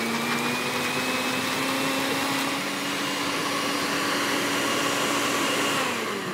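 Cosori blender's motor running at full speed, grinding roasted green chillies into a sauce: a steady whine that winds down near the end.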